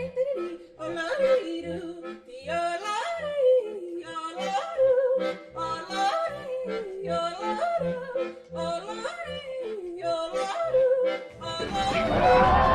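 Yodeling song: a voice leaping between low and high notes over a held accompanying note and a steady bass beat. About a second before the end a loud hiss with a few steady tones comes in over it.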